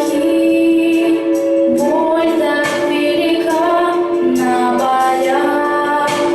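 A song sung by a female voice, holding long notes and gliding between them in a slow melody.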